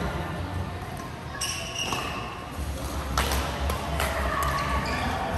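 Badminton rally: rackets striking the shuttlecock in several sharp hits, one about a second and a half in and a quick run of them past the middle.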